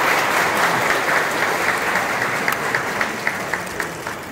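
A crowd applauding, dense at first and thinning out into scattered separate claps as it dies away.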